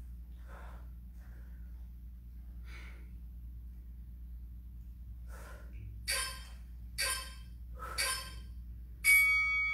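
A woman breathing hard while working out with dumbbells, her sharp exhales coming about once a second toward the end. Near the end a loud, steady beep starts: the workout timer marking the end of the timed set.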